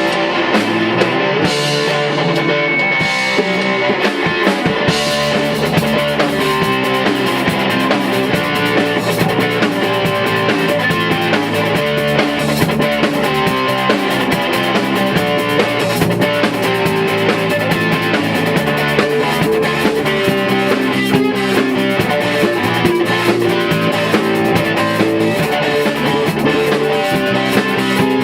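Rock band playing a song live at rehearsal: guitar lines over bass and drum kit. The cymbals and drums fill in after about five seconds.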